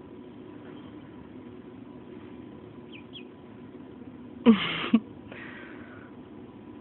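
Mallard duckling peeping faintly a couple of times, then a loud rushing sound lasting about half a second, with a sharp start and a sharp end.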